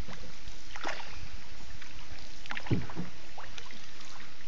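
Small boat being paddled through floodwater: a few paddle splashes over a steady wash of water noise.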